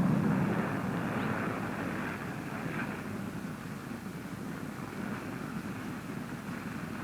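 Jet aircraft noise, a steady rushing sound that is loudest at first and fades gradually, muffled by an old narrow-band film soundtrack.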